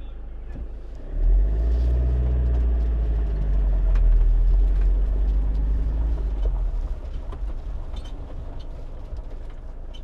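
A motor vehicle's engine, coming up sharply about a second in, running loud for a few seconds with its pitch bending, then fading away over the last few seconds.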